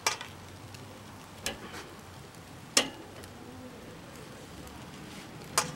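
Metal grill tongs clacking against the grate and meat of a charcoal kettle grill: four sharp clicks at irregular intervals, the loudest nearly three seconds in. Beneath them is a faint steady hiss of beef slices sizzling over the coals.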